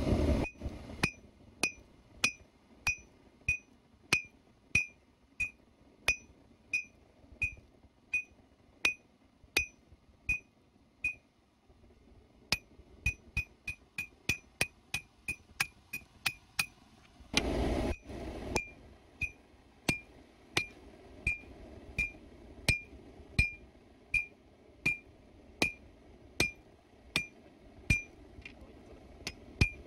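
Sledgehammer blows on red-hot leaf-spring steel lying on an anvil, about one and a half a second, each with a bright ring from the anvil. The blows stop briefly near the middle, then come in a quicker run, and a burst of rushing noise lasting about a second follows a little past halfway before the steady blows resume.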